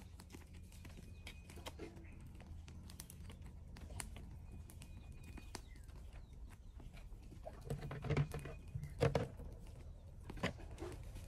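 Small knife cutting pig-head skin on a round wooden chopping block: a run of light clicks and taps as the blade goes through the meat and meets the wood, with a few louder knocks about eight and nine seconds in.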